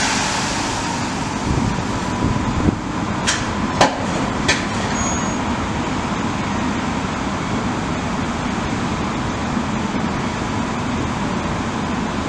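ÖBB class 1010 electric locomotive standing ready to depart, its cooling blowers running with a steady hum and a thin high whine. A sudden hiss at the start and three sharp clicks about three to four and a half seconds in.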